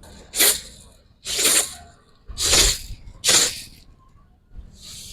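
Hand spray bottle squirting: four short hissing squirts about a second apart, then a fainter one near the end.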